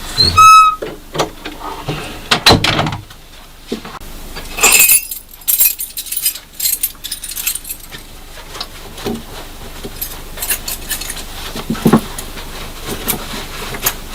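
Objects being handled: irregular clicks, knocks and rattles, with a short squeak about half a second in.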